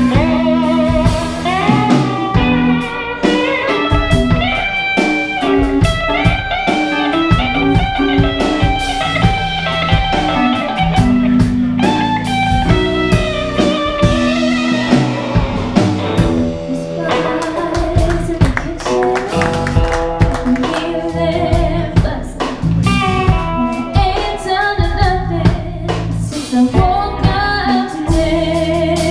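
Live band playing a slow blues-rock song: electric guitar, keyboard and drum kit, with a woman singing.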